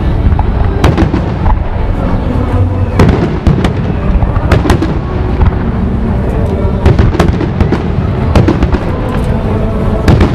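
Aerial fireworks shells bursting: a rapid, irregular series of sharp bangs over a continuous low rumble of explosions.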